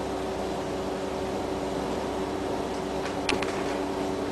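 Window air conditioner running with a steady hum, and a single short click about three seconds in.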